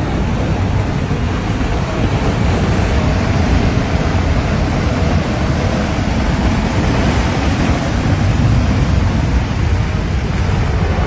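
River in flood rushing loudly and steadily, a dense unbroken roar of floodwater with a heavy low rumble.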